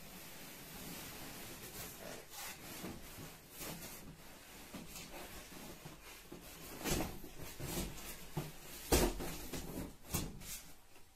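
A wheeled shopping trolley with a fabric bag being slid up out of its cardboard box, the bag and frame rubbing and scraping against the cardboard. Several knocks follow in the second half as the frame and wheels bump the box, the loudest about nine seconds in.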